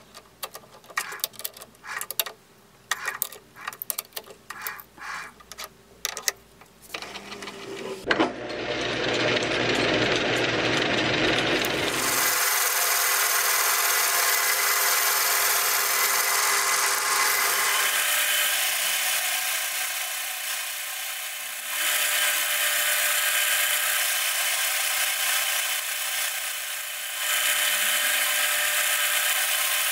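Metal lathe boring out the inside of an annealed ball-bearing inner race: first a series of short clicks and knocks as the ring is clamped in the three-jaw chuck, then a sharp click as the lathe is switched on about eight seconds in. From about twelve seconds the lathe runs with a boring bar cutting the steel, a loud steady cutting noise that drops briefly twice near the end.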